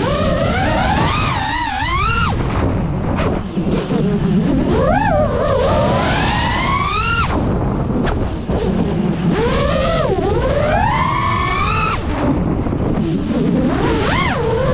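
5-inch FPV quadcopter's motors whining, the pitch sweeping up over a second or two and dropping again about five times as the throttle is punched and cut during dives and flips. Under it, a steady rush of wind and prop wash.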